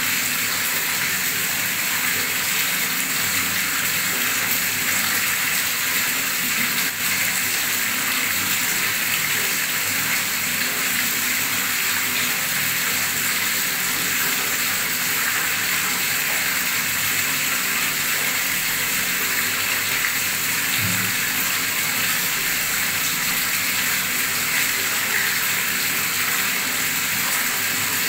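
A strong stream of tap water gushing into standing water, a steady splashing rush with bubbling.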